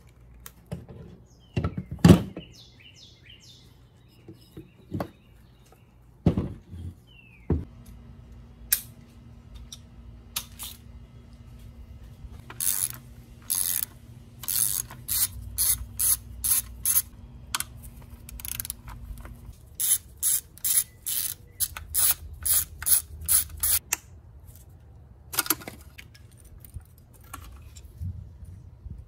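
Hand socket ratchet clicking in two runs of quick strokes, about three clicks a second, as bolts are undone in the engine bay. A few knocks of metal parts being handled come before, the loudest about two seconds in.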